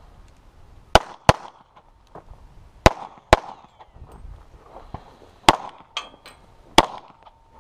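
A string of handgun shots, about eight in all, some in quick pairs a third to half a second apart, with pauses of a second or two between groups.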